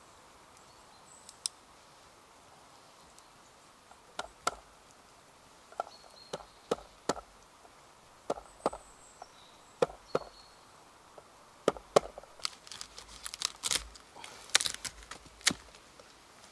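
A series of irregular, sharp chopping knocks on wood, about one or two a second, coming closer together near the end.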